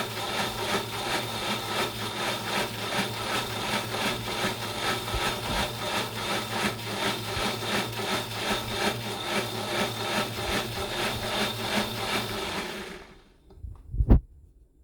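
Breville Bluicer blender running on a slow speed, churning thick tomato-based barbecue sauce with an even pulsing of about four a second. It cuts off about thirteen seconds in, followed by a single loud knock.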